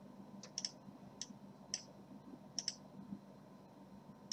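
Computer mouse buttons clicking: about six short, sharp clicks, two of them quick pairs.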